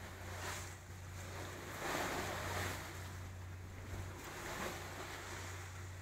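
Water rushing and splashing along the hull of a moving boat, with wind on the microphone and a steady low hum underneath; a louder surge of water comes about two seconds in.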